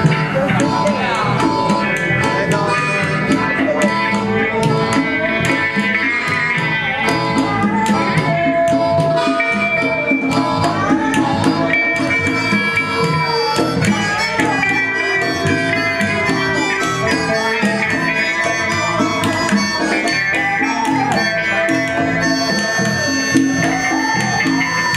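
Live blues-rock band playing an instrumental passage, with congas and hand percussion driving the rhythm under guitar, bass and keyboards. A harmonica plays long held notes near the end.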